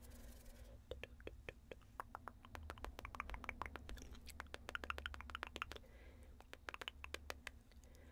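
Close-miked ASMR clicking: many soft, quick clicks in irregular runs, thickest about three and five seconds in, over a low hum.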